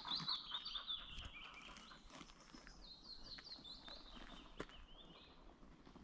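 Small woodland songbirds singing: a quick descending trill at the start, then runs of short repeated chirps. A few faint footsteps click on the path.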